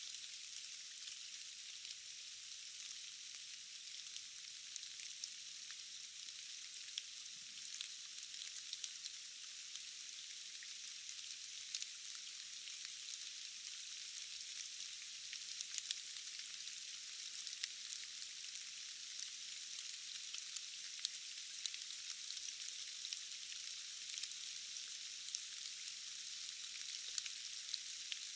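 Steady rain: an even, high hiss scattered with many small, sharp ticks of single drops, with nothing low underneath.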